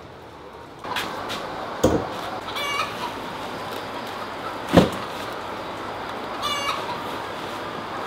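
Laying hens clucking, with two brief runs of rapid repeated clucks. Two heavy thumps, the second and louder about halfway through.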